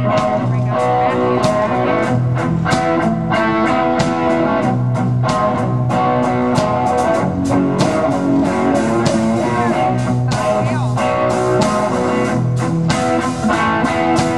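A band playing the instrumental intro of a country rock song: guitars over bass and a steady drum beat.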